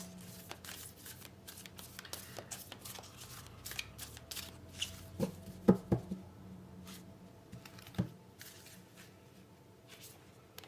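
Tarot cards being shuffled and handled by hand, a steady patter of small card clicks and rustles, with a cluster of louder taps about halfway through and another a couple of seconds later as cards are knocked together or set down.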